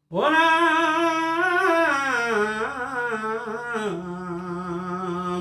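A man chanting a devotional verse in a long drawn-out melodic line: one held phrase of about five seconds with a wavering, ornamented pitch that steps down about four seconds in.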